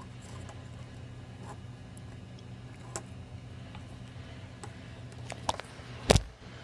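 Scattered light clicks and handling noise as a bench power supply's voltage knob is turned up, over a steady low electrical hum, with one sharper knock about six seconds in.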